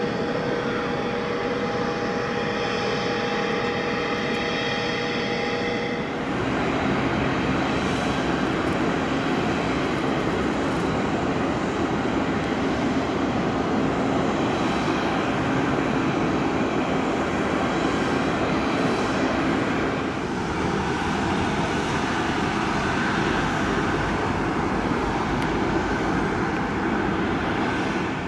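Steady jet turbine whine over a rumble from a Boeing 757-200 airliner on the apron. The whine changes abruptly about six seconds in and again about twenty seconds in.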